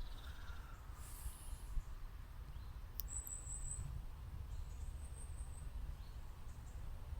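Faint outdoor background: a steady low rumble, a single sharp click about three seconds in, then two brief, thin, very high-pitched chirps.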